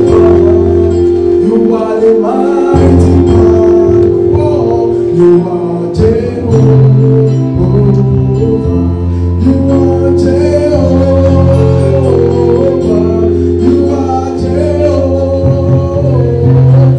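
Gospel music with singing over held chords and a bass line.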